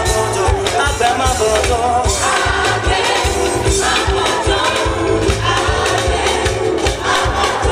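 Live gospel praise band and choir performing an Ewe-language praise medley: several voices singing together over drum kit and keyboard, with a steady driving beat.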